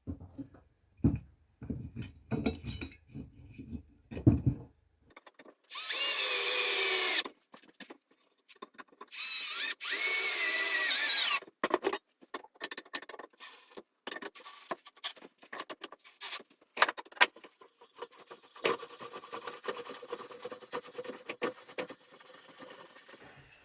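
A power drill runs in two bursts, about a second and a half and then about two and a half seconds long, its whine rising and falling in pitch with the trigger. Scattered knocks and clatter from handling wood and tools come before, between and after the bursts.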